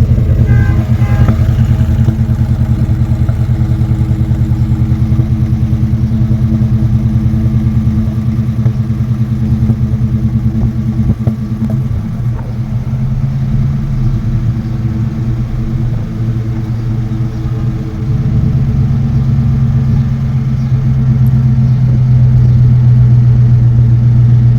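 2017 GMC Sierra 1500's 5.3L V8 running at fast idle just after a cold start, with a metallic popping rattle from the exhaust. It is the sign of a misfire at cold start, which the owner later traced to failing fuel injectors. The level dips through the middle and rises again near the end.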